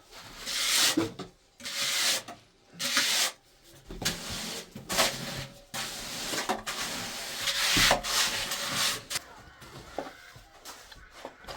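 A hand tool scraping on masonry during a toilet-stone repair, in a series of strokes about one a second that die down near the end.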